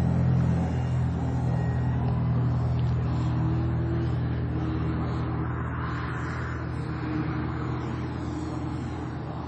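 Engine of a 78-inch Extreme Flight Extra radio-controlled aerobatic plane running steadily in flight, growing gradually quieter as the plane flies away.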